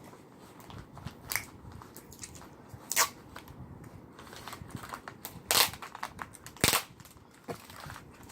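Paper and sticky tape being handled while a paper squishy is assembled: scattered sharp crackles and snaps, loudest about three, five and a half and six and a half seconds in.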